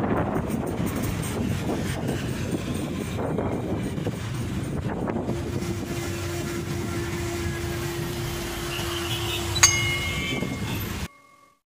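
Wind rumbling on a handlebar-mounted phone's microphone, with road and traffic noise, while riding a bicycle along a city street. A steady hum joins about halfway through, and a single bright ding sounds near the end before the sound cuts off abruptly.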